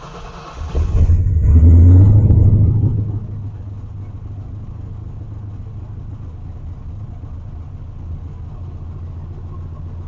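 Fox-body Mustang's Holley Dominator EFI engine restarted warm: the starter cranks briefly, the engine catches about a second in and flares up, then settles within a couple of seconds to a steady fast idle around 1,600–1,700 rpm. It is a quick, clean start on a retuned cranking-fuel and idle-air-control setup.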